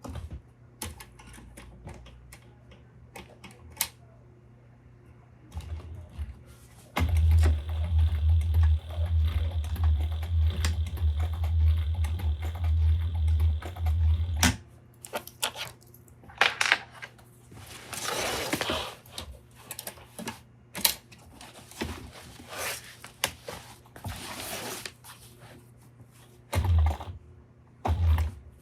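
Sewing machine stitching a seam in an apron for about seven seconds, a steady low motor sound under rapid clicking, with scattered clicks before it and rustling and a couple of thumps as the fabric is handled afterwards.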